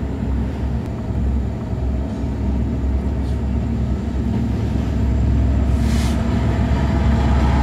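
A car driving, heard from inside the cabin: a steady low rumble of engine and road noise that grows a little louder over the second half.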